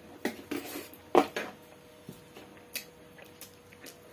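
Close-up sounds of a person eating rice by hand off a steel plate: several short, sharp mouth and chewing noises in the first second and a half, the loudest about a second in, then a few soft clicks.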